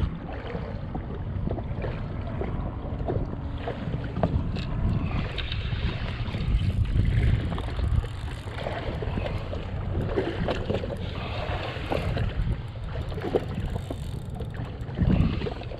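Wind buffeting the microphone over water sounds around a jet ski, with scattered small knocks and clicks.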